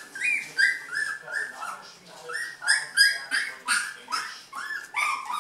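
Several young puppies whining and yelping in quick succession, short high-pitched cries about two or three a second.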